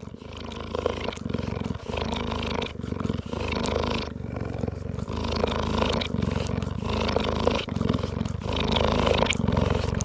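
A cheetah purring: a loud, continuous, rapidly pulsing rumble, broken every second or two by brief pauses where the cat breathes.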